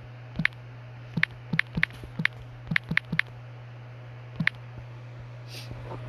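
Typing on a smartphone's on-screen keyboard: about ten short tapping clicks in uneven runs, the last one about four and a half seconds in, over a steady low hum.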